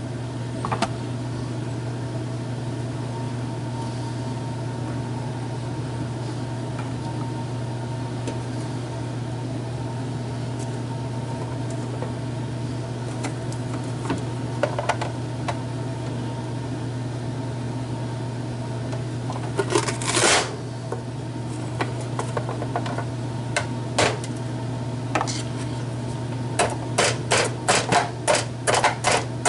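Steady low hum in the room, with scattered plastic knocks, a short clatter about two-thirds of the way through, and a quick run of clicks near the end as a plastic vegetable chopper with a green lid is handled and its lid and blade grid raised.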